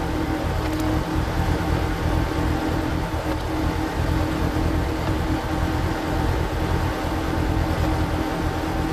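Walk-behind power tiller's diesel engine running steadily, driving a screw-cone log splitter, played back at double speed.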